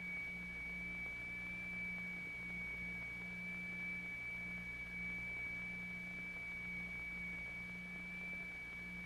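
A steady high pure test tone, the kind played to set a plate vibrating in a cymatics experiment, with a fainter second tone just below it and a low hum underneath that comes and goes.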